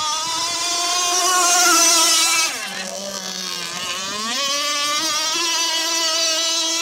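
Radio-controlled catamaran racing boat with a three-blade propeller running at speed with a high, steady motor note. About two and a half seconds in the pitch drops and stays low for over a second, then climbs back up.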